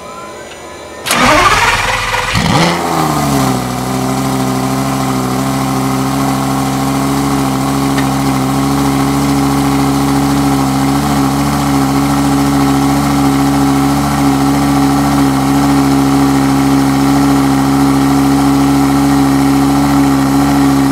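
Lamborghini Gallardo Superleggera's 5.0-litre V10, with straight test pipes in place of its catalytic converters, starting: it catches about a second in, its revs flare up and swing, then it settles into a steady idle after about three and a half seconds.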